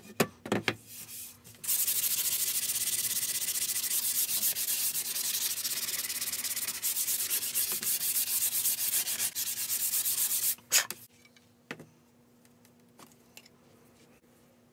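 Pine board being sanded by hand. A few separate scratchy strokes are followed by about nine seconds of fast, continuous sanding, which ends with a sharp knock. After that there is only faint rubbing.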